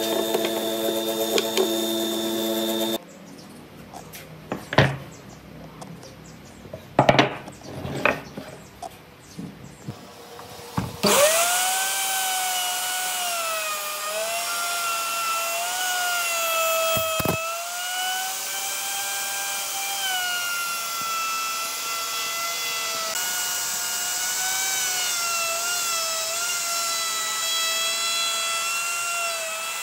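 Electric power tools working wood. A steady machine drone cuts off about three seconds in, and a few sharp knocks follow. Then a motor starts with a whine that sags and recovers in pitch as the tool bites into the wood, dropping out briefly near the middle.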